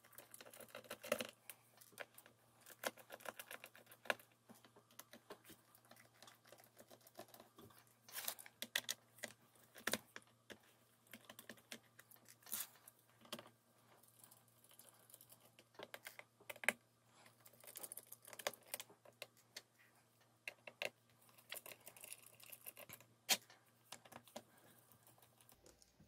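Faint, irregular clicks and taps of a precision screwdriver working the screws out of a laptop's plastic bottom cover, with the small screws handled and set down among them.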